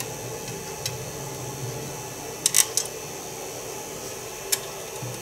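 Sharp little metallic clicks as a hex key works the grub screws on the Z-axis coupling of a Creality CR-10S 3D printer: one about a second in, a quick cluster of three about two and a half seconds in, another near the end. Under them runs the steady hum of the powered-on printer.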